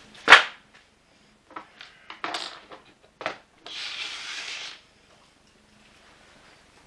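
Small parts being handled on a tabletop during a vacuum cleaner teardown: a sharp click, a few light knocks, then about a second of rustling.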